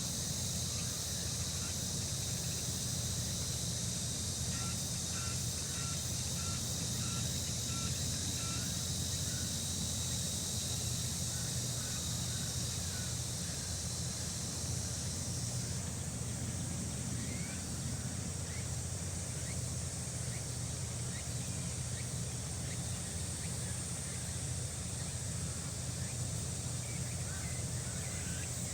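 A steady outdoor summer insect chorus: a dense high buzzing drone that changes character about halfway through, narrowing and rising. Faint short bird chirps come and go, over a steady low rumble.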